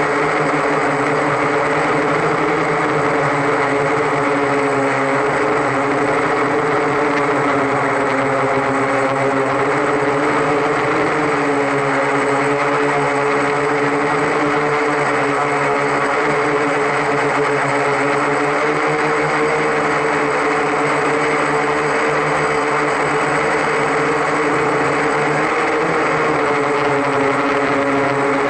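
Octocopter's eight electric motors and propellers running in flight: a steady, many-toned buzzing hum whose pitch wavers slightly up and down.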